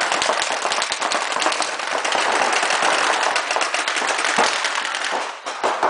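Several paintball markers firing reball rounds in rapid, overlapping strings of shots in a large sports hall. The firing thins out near the end.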